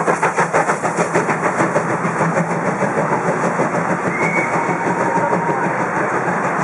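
DR class 52 two-cylinder steam locomotive (52 8079-7) passing beneath, with a quick run of even beats over the first two seconds, then a steady running rumble as it moves away.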